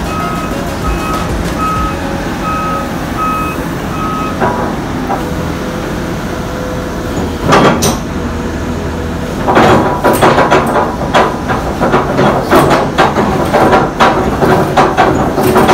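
Volvo EC480D hydraulic excavator running while its arm and bucket are worked in a function test. A warning alarm beeps about one and a half times a second until about four seconds in. From about halfway, a busy run of sharp metallic knocks and clanks sets in.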